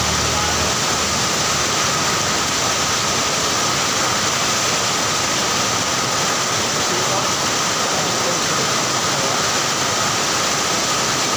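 Heavy rain pouring down, a steady, even hiss of a downpour.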